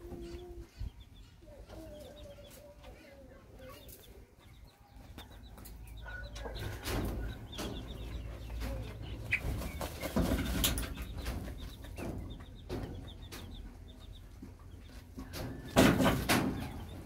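A hen making low clucks while her chicks peep, with rustling and scratching in the dirt. A brief, loud rustling burst comes near the end.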